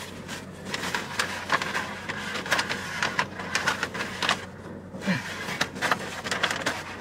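Paper napkins crinkling and rustling, handled and crumpled to wipe up spilled sauce, in many quick crisp rustles with a short lull about two-thirds through.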